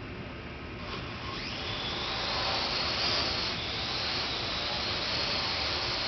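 Parrot AR.Drone 2.0 quadcopter's electric motors and propellers spinning up about a second in, the whine rising in pitch as it lifts off, then holding a steady high whine as it hovers.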